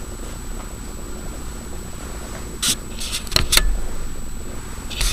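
Steady background hiss with a faint high-pitched whine, broken a little past halfway by a brief cluster of sharp clicks and knocks, with another knock at the very end.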